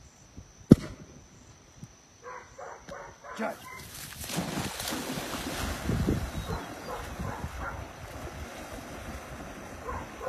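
A sharp knock about a second in, then a yellow Labrador retriever whining a few times before it plunges into a pond with a sudden splash and swims out on a retrieve, water churning steadily.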